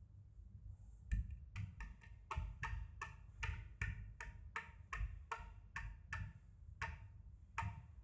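Steady run of sharp knocks by hand on a hard surface, about three a second, starting about a second in. They are the noise used to trigger an LED stage light's sound-activated mode.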